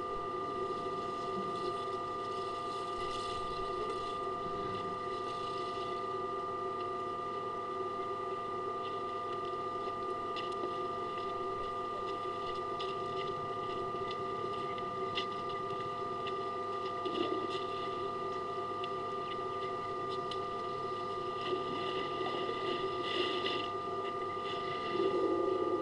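A steady hum made of several constant tones, with faint scattered clicks and a short louder stretch near the end.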